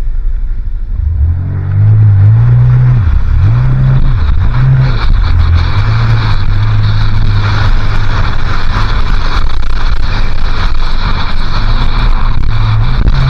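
Jet ski engine running at speed, its pitch rising and dipping over the first few seconds, then holding steady. It is overlaid by a steady rush of water spray and wind on the microphone.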